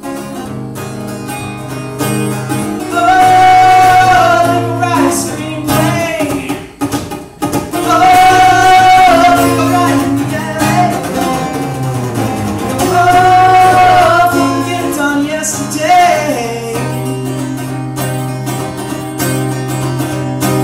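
Live music: a man singing into a microphone over a strummed acoustic guitar, holding three long high sung notes a few seconds apart.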